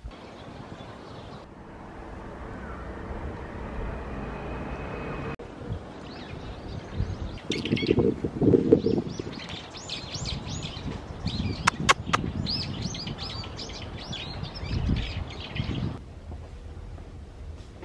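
Small birds chirping repeatedly in quick, high calls over a steady outdoor background rumble.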